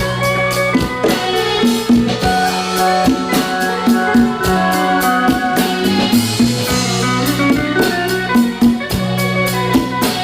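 Live band playing an instrumental passage between sung lines: drum kit keeping a steady beat under sustained bass and guitar chords.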